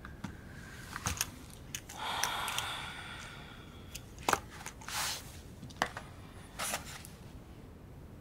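Pen writing on notebook paper in short scratchy strokes, with scattered light clicks and taps of the pen. The longest stroke comes about two seconds in, with faint squeaks.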